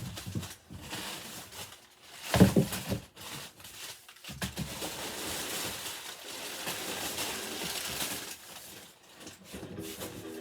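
Packaging being rustled, crinkled and torn open for several seconds, from about four seconds in. It is preceded by a short, loud vocal sound about two and a half seconds in.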